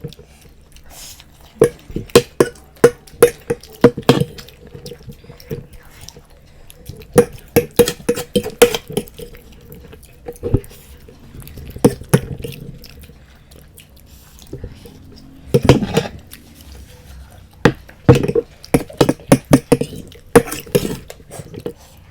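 Close-up eating sounds: cutlery clicking against plates in quick clusters, with chewing, as momos and Maggi noodles are eaten.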